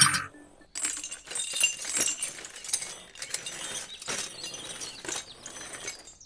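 Small metal hitch hook clinking against a toy tractor's drawbar as it is hooked on, followed by several seconds of light scattered metallic clicks and rattles as the toy tractor tows the trailer.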